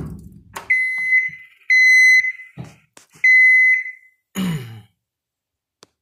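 John Deere skid steer's cab warning buzzer beeping three times at key-on, each beep about half a second and high-pitched, as the machine's display counts down its preheat before starting. A heavy thump comes just before the first beep and another shortly after the last.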